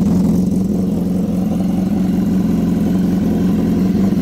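BMW S1000RR's inline-four engine idling steadily through an Austin Racing aftermarket exhaust.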